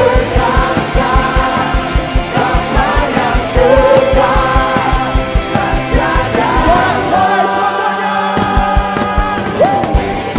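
Rock-style worship band music: a steady drum beat under a bending lead melody line. About seven seconds in, the bass thins out under one held note.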